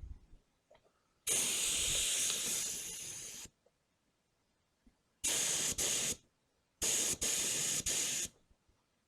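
Compressed-air paint spray gun hissing in three trigger pulls: one of about two seconds, then two shorter ones of about a second and a second and a half.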